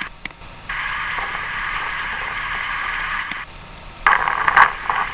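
Steady mechanical noise from an Armstrong 33-W cable-tool drilling rig, played back from a video on a computer. It starts and cuts off abruptly as the playback skips ahead, then gives way to a louder, irregular clatter about four seconds in.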